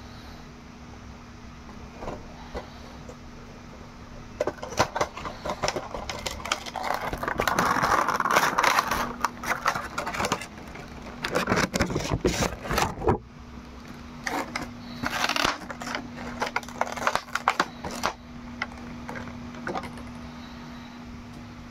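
Cardboard Funko Pop box and its clear plastic insert being handled and opened: crinkling, scraping and tapping of plastic and card, busiest in the middle and dying away near the end, over a steady low hum.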